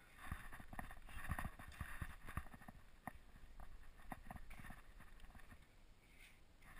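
Faint, irregular soft knocks and rustling, several a second, from movement and handling of a body-worn action camera.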